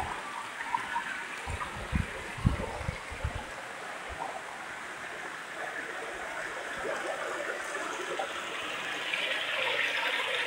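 Small stream running over rocks, a steady rushing that grows louder near the end. A few low thumps in the first few seconds.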